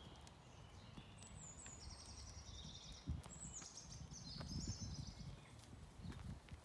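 Songbirds singing a few short, high trilled phrases over low thuds and rustling of footsteps on a gravel path, with one sharper thump about three seconds in.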